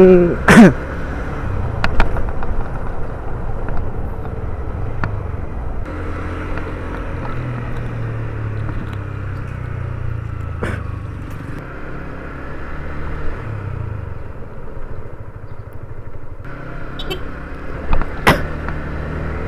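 Motorcycle engine running as the bike is ridden, a steady low hum whose note shifts a few times, with road and wind noise and a few sharp clicks.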